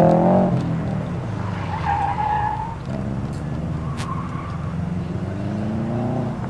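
Subaru Impreza WRX STI's turbocharged flat-four engine revving hard, then easing off, with a tyre squeal about two seconds in as the car turns through the cones. The engine revs rise again near the end.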